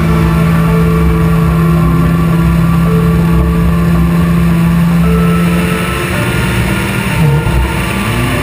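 Turbocharged four-cylinder engine of a 1996 Mitsubishi Lancer Evolution III Group A rally car at speed, under background music with a long held low note. In the last couple of seconds the engine note rises and falls sharply as it revs.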